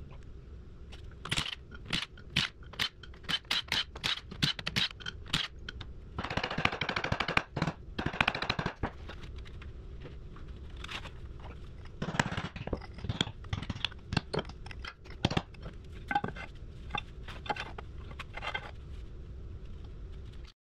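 Ratchet wrench clicking in quick strokes with some metal scraping, as the bolts of an excavator final drive cover are backed out. The clicks come in runs, with a denser rattling stretch about six to nine seconds in.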